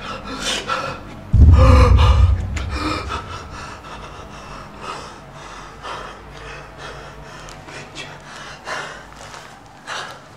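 A man gasping and breathing raggedly in pain, the gasps growing weaker and fainter. A deep low boom sounds about one and a half seconds in.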